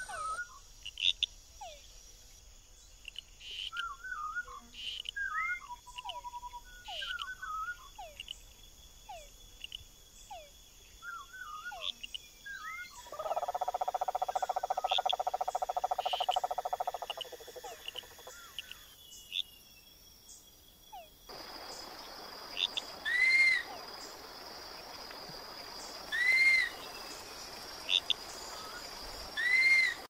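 Forest soundscape: assorted bird chirps and falling whistles over a steady, high insect drone, with a croaking, pulsing call for about four seconds near the middle. About two-thirds of the way through, a steady hiss rises underneath, and an arching call repeats every three seconds or so.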